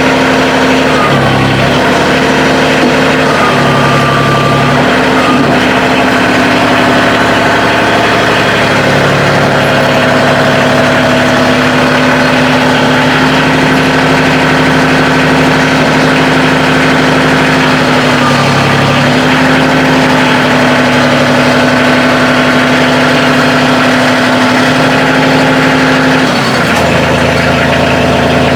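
Engine idling steadily while it warms up after a start, its pitch shifting slightly a few times.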